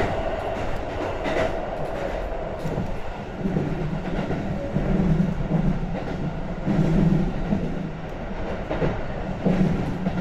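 Sanyo Electric Railway train running on the main line, heard from inside the carriage: a steady running noise with wheel clacks over rail joints. About three seconds in, a low hum comes in and swells and fades.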